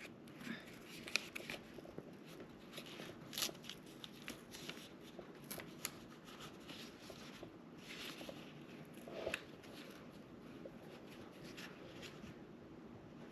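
Faint crinkling and scattered light ticks as the backing is peeled off an adhesive repair patch and the patch is handled, with a few sharper crackles along the way.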